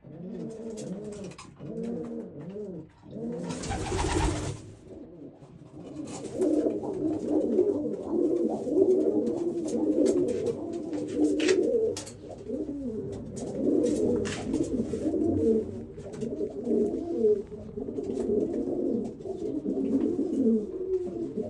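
Old German Owl pigeons cooing over and over, the cooing growing denser and almost unbroken after about six seconds. A short, loud rushing noise about four seconds in, and scattered light clicks.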